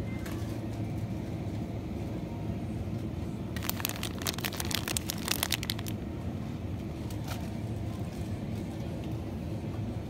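Steady low hum of supermarket ambience in front of a refrigerated display case. From about three and a half to six seconds in, a crackly crinkling of plastic packaging as the shredded-cheese bags are handled.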